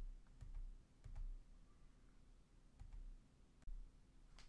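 Near silence: faint room tone with a few soft clicks and low thumps scattered through it.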